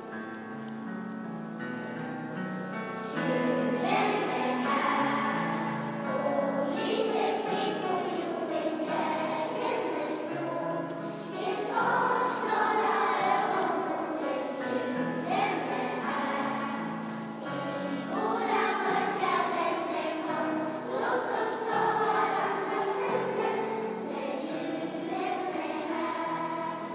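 Children's choir singing a Christmas song over steady held low notes, growing louder about three and a half seconds in.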